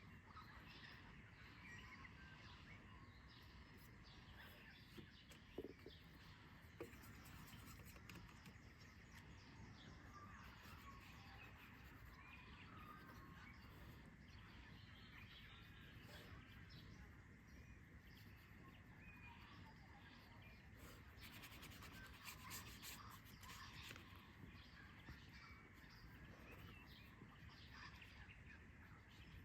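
Faint birds chirping and calling over a steady low outdoor hum, with a couple of soft knocks about six seconds in.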